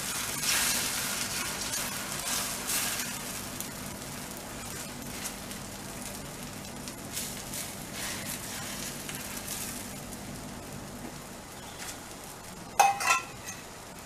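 Thin cucumber-and-flour batter sizzling as it fries in a hot pan, the hiss slowly fading, with faint scrapes of a spoon. Near the end comes one sharp metallic clink of a utensil.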